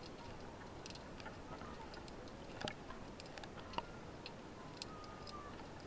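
Underwater sea ambience heard just below the surface: scattered sharp clicks and ticks over a faint steady hiss, with a cluster of stronger clicks a little under halfway through and a few faint short tonal squeaks.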